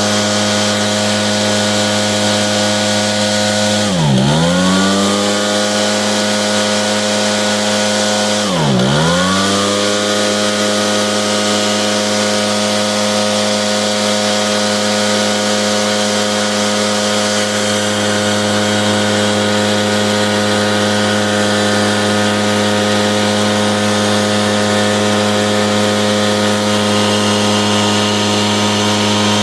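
Echo PB770H backpack blower's two-stroke engine running steadily at high speed. Twice near the start, about four seconds apart, the engine speed dips sharply and climbs straight back. The blower is being run hot to try to reproduce a hot-restart and stumble fault, and it keeps running without dying.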